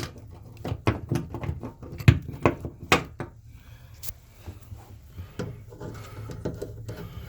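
Sharp knocks and clicks of things being handled and set down in a bathtub, with something being laid over the drain. They come close together for the first three seconds or so, then thin out to a few scattered taps.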